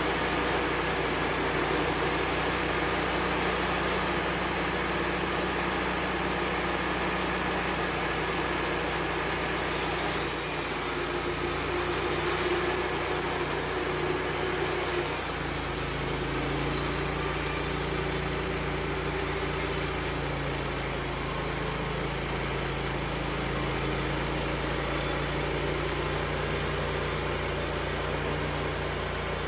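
Engine of a Wood-Mizer LT35HD portable band sawmill running steadily, with its note changing about fifteen seconds in.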